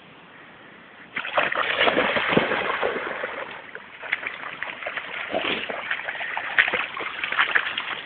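Splashing and sloshing through shallow floodwater: irregular wading splashes that start about a second in and keep on.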